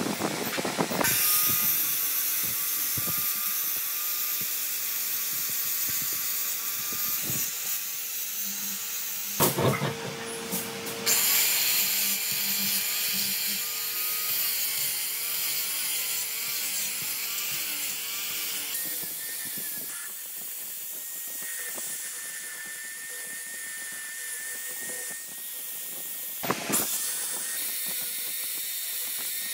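A small high-speed power tool running steadily with a hissing, high-pitched sound and a faint tone that wavers as it is loaded, changing character a few times, with short knocks about ten seconds in and again near the end.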